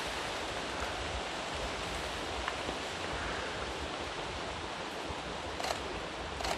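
Steady outdoor hiss of wet weather, with two footsteps near the end.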